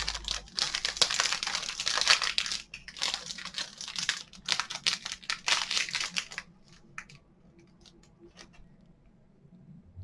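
Plastic snack-cake wrapper crinkling as it is handled, a dense crackle that stops about six and a half seconds in, followed by a few faint clicks.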